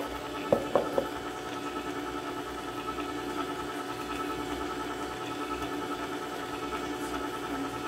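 Vertical slow juicer's motor running with a steady hum. A few light knocks about half a second in come as the plastic juice jug is handled and set down.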